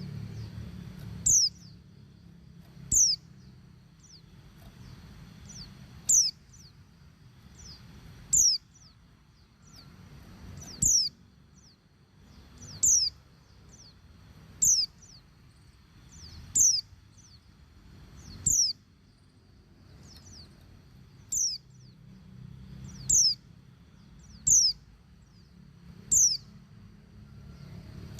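Female white-eye (pleci) giving short, high call notes that fall in pitch, about one every one and a half to two and a half seconds. This is the female's call that draws males and sets them singing. A steady low hum runs underneath.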